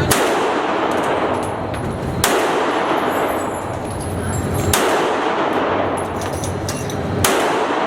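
Four loud gunshots at a shooting range, about two and a half seconds apart, each trailing off in a long echo, with fainter clicks and knocks between them.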